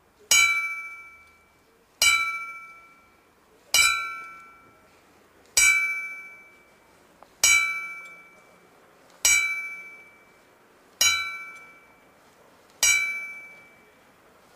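A bell striking the twelve chimes of midnight that mark the new year, one ringing stroke about every two seconds. Each stroke fades before the next, and eight of them are heard.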